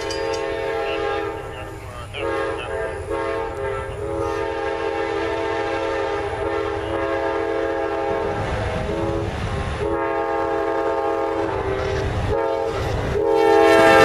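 Amtrak P42DC locomotive's multi-chime air horn sounding a series of long and short blasts, the longest about four seconds, getting louder as the train approaches. The rumble of the train on the rails joins in near the end as it arrives.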